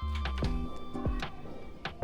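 Background music with a steady beat, a held bass line and sustained tones.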